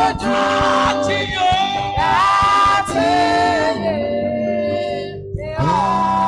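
Gospel worship music: voices singing slow, long-held notes that slide from one pitch to the next. The music dips briefly about five seconds in, and a new phrase starts just after.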